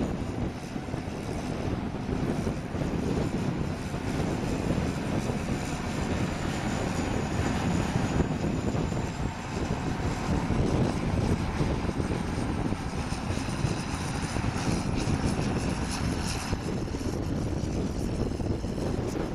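Farm tractor's diesel engine running steadily under load while towing an earth scraper that is cutting and loading soil.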